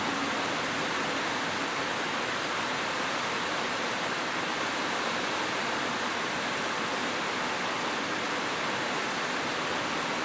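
Rain falling steadily, an even hiss with no change in intensity.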